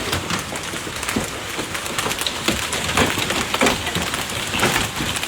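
Heavy rain beating on hard surfaces: a steady wash of noise with many sharp, irregular hits.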